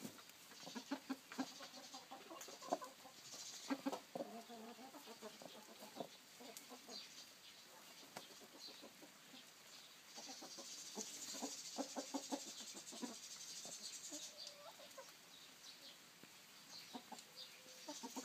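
Hens clucking in short, scattered bursts, most of them in the first few seconds and again a little past the middle.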